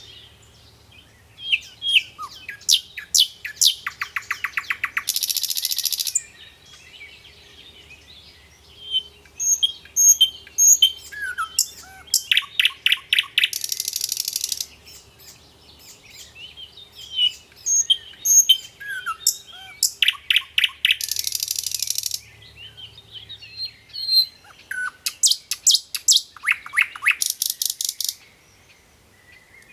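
Birds chirping and calling: rapid trills of sharp chirps and short harsh, buzzy calls, coming back in a similar sequence about every seven to eight seconds. A faint low hum runs underneath.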